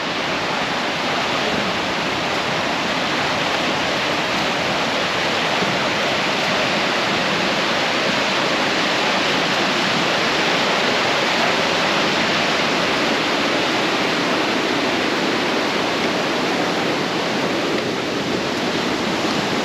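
Waterfall crashing into its pool, a loud, steady rush of falling water.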